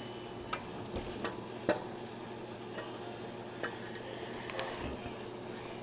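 Scattered light metallic clicks and taps, with one sharper knock a little under two seconds in, as a cast water pump housing is wiggled off its dowel pins on a Suzuki 2.3 L engine. A faint steady hum runs underneath.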